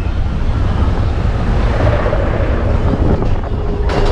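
Wind buffeting the microphone over the rumble of the Expedition Everest roller coaster train rolling along its track. Near the end a steady hum comes in as the train reaches the lift hill chain.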